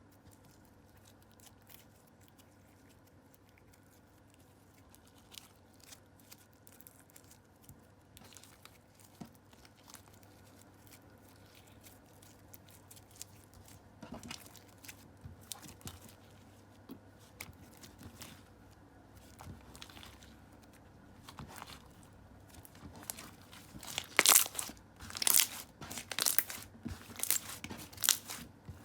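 Clear slime being handled by hand: scattered soft crackles and sticky squelches, getting busier partway through, with a run of much louder crackles in the last few seconds.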